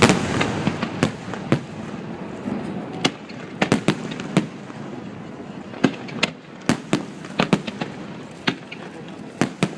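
Aerial fireworks going off: a string of sharp bangs and crackling pops at irregular intervals, the loudest right at the start.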